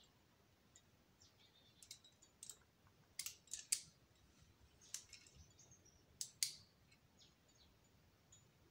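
A series of faint, sharp clicks and clinks in small clusters, loudest around the middle: carabiners and climbing gear knocking together as the rope is handled during a lead climb.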